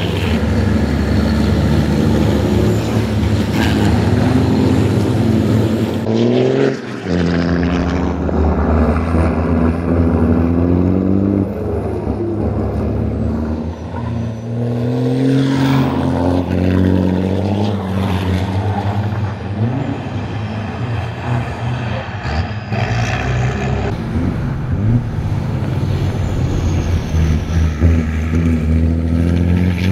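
Diesel racing trucks' engines accelerating past, the pitch climbing through the gears and dropping at each shift, several times over, with the hiss of tyre spray on a wet track.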